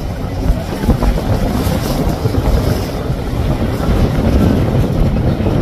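Wind buffeting the microphone over a passing deck boat's Mercury outboard motor and the rush of its wake through the water.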